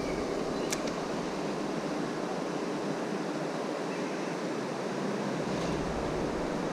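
Steady rushing noise of flowing stream water, with a single sharp click about a second in.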